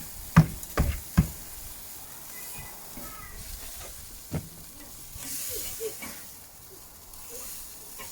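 Food sizzling on a grill, a steady hiss that grows louder for a moment about five seconds in. Four sharp clicks or knocks come in the first second or so, and one more about four seconds in.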